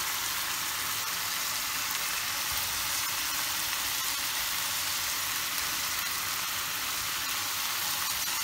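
Steady frying sizzle from hot oil as thin matchstick-cut raw potatoes are dropped in by hand, with minced meat frying in a second pan. The oil is hot but not yet very hot.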